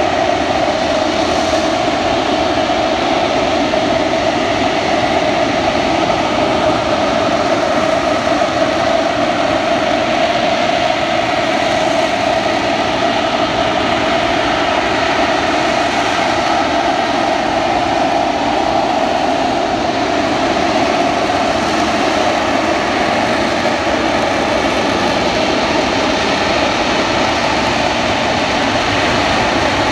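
AV-8B Harrier II Plus's Rolls-Royce Pegasus turbofan running at high thrust during slow, jet-borne flight and hover. It makes a loud, steady jet noise with a strong droning tone and does not rise or fall.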